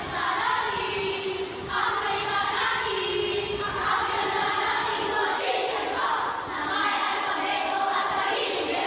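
A chorus of children reciting a Filipino verse in unison (sabayang pagbigkas), many voices chanting together in short phrases with brief pauses between them.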